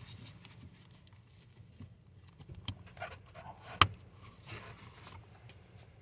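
Faint handling and rustling with scattered small clicks, then one sharp click a little before four seconds in: the climate control cable's clip snapping into its mounting spot.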